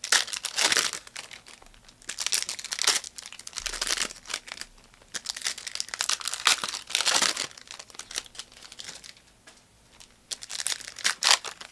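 Crinkly plastic wrapping of trading card packaging being crumpled and torn, in a series of rustling rips with short pauses between them.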